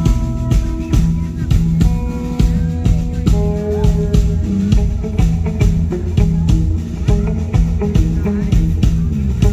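Live rock band playing: electric guitar holding sustained notes, with some bends, over a drum kit keeping a steady beat, amplified through stage speakers.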